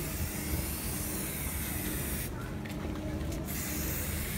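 Aerosol spray-paint can hissing in two long bursts with a break of about a second between them, over a low background rumble.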